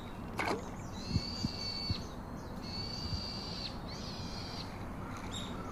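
A bird calling: three drawn-out, even, high whistled notes of about a second each, after a quick falling whistle near the start. A few soft knocks come through underneath.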